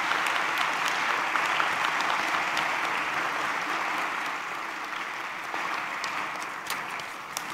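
Audience applauding, slowly dying down toward the end.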